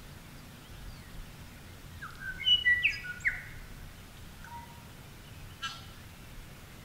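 A bird calling: a quick run of short, clear whistled notes about two seconds in, then a single fainter note. A brief sharp click follows near the end.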